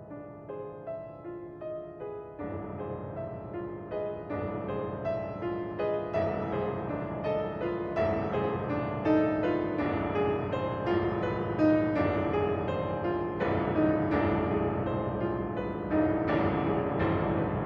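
Solo grand piano playing a delicate contemporary piece: a flowing stream of notes that grows steadily louder.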